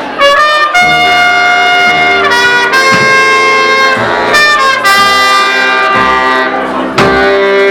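Live band music played loud: a wind instrument plays held notes that step from pitch to pitch over drums, with sharp drum hits about three, four and seven seconds in.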